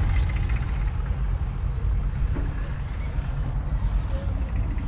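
McCormick Deering WD6 four-cylinder 4.1-litre diesel tractor engine idling steadily, with a fast, even low pulsing.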